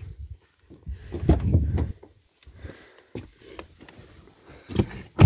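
Car door opened by its outside handle and someone climbing into the driver's seat, with rustling, thumps and a few sharp clicks, then the door shut with a loud thud at the very end.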